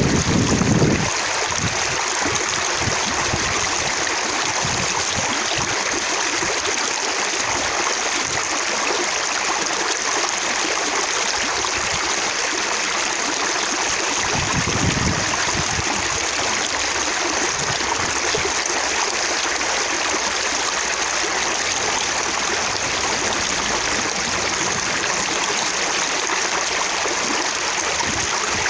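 Running water splashing and trickling steadily, droplets spattering, with a brief low rumble about halfway through.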